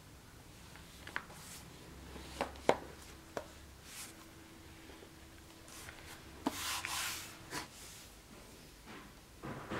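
A bowie knife and its leather scabbard being handled: a few sharp clicks and knocks of the blade and sheath being set down and picked up, then leather and clothing rustling as the scabbard is fitted at the belt.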